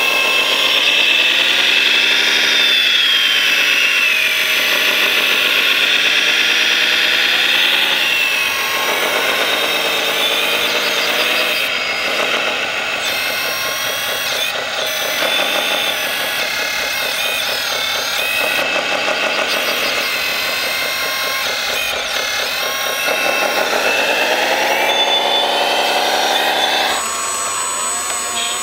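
Electric drive motors of a 1/14 scale RC model machine whining, the pitch falling and rising again and again as the machine speeds up and slows down. About 27 seconds in, the whine drops away to a quieter sound with a thin high steady tone.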